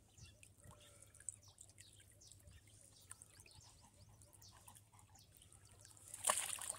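Water dripping and trickling off a wet dog into shallow canal water, faint and irregular. About six seconds in, a brief loud splash.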